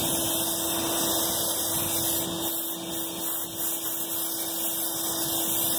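Pressure washer running steadily, a hiss of water spray with a constant motor hum, as the jet is worked over the upholstery of a car seat.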